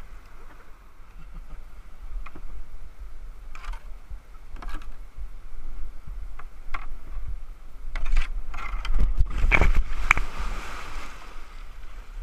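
Whitewater kayak seal-launching off a rock ledge: a few knocks as the hull is pushed along the rock, then the boat drops and hits the river with a loud splash about nine to ten seconds in, over the steady rush of the rapid.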